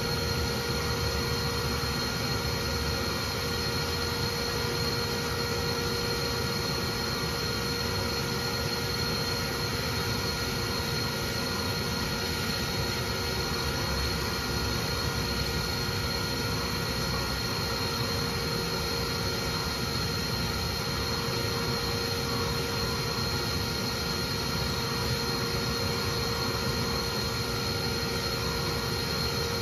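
Bee vacuum running steadily, its motor giving an even rushing noise with a constant whine, as the hose sucks bees off cut honeycomb.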